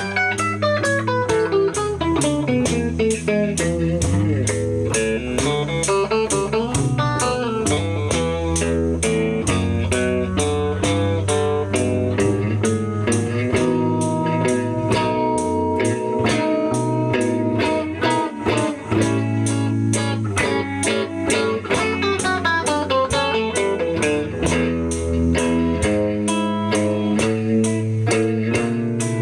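Live blues band playing an instrumental passage: electric guitar lines over a bass line and a steady beat, with fast falling guitar runs near the start and again a few seconds before the end.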